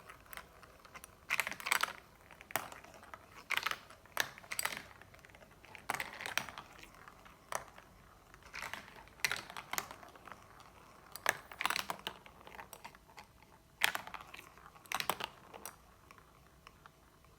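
Marbles clicking and clattering as they roll down a marble-run track, in short rattling bursts about once a second that stop shortly before the end.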